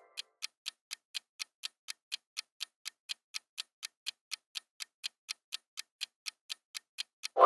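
Countdown-timer clock ticking sound effect: sharp, evenly spaced ticks, about four a second, keeping a steady pace.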